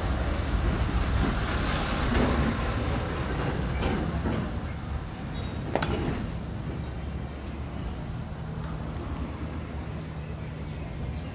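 A motor vehicle's engine running, a steady low rumble that is strongest in the first few seconds and eases off after about six seconds. There is one sharp click about six seconds in.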